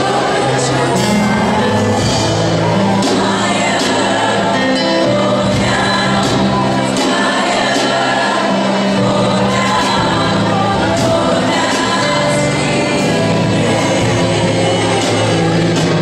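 Women's gospel choir singing, with a lead singer in front of the group, over keyboard accompaniment with held bass notes.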